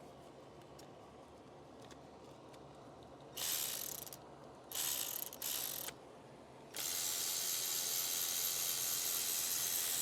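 Ratchet wrench being turned fast, its pawl clicking so quickly the clicks blur together: two short runs, then a longer run of about four seconds near the end.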